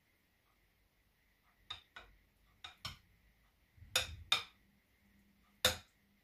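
A kitchen utensil knocking and clinking against a glass bowl: about seven short separate knocks, spread out, the later ones loudest, as tzatziki is spooned into the bowl and smoothed.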